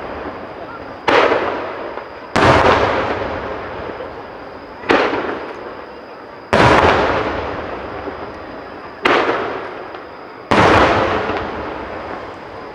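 Aerial firework shells bursting: six sharp booms at uneven gaps of one to two and a half seconds, each trailing off in a long rolling echo.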